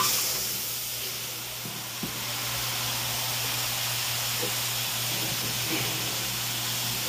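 Marinated goat meat hitting hot oil and sugar in a caldero: sizzling that starts suddenly as the meat goes in, then settles into a steady hiss.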